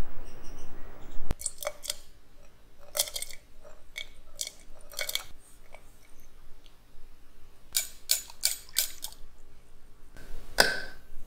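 Short crisp clicks and taps, scattered with brief gaps, from a wooden spoon and hands working at a glass clip-top jar as sugar is spooned in over raisins and water. They follow about a second of faint outdoor ambience that cuts off suddenly.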